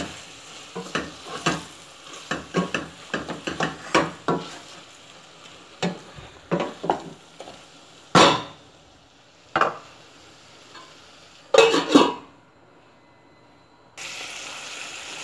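A utensil stirring chicken, tomatoes and onions in a stainless steel pot, knocking and scraping against the metal in quick irregular taps over a frying sizzle. There are a few louder clatters in the second half, and a steady sizzle near the end.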